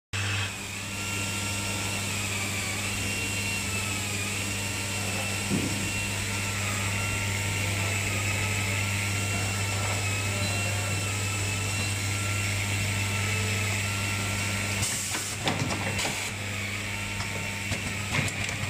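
Automatic wire soldering machine running: a steady hum and rattle from its vibratory bowl feeder shaking plastic connector housings. The hum stops about fifteen seconds in, and a few sharp mechanical clacks follow.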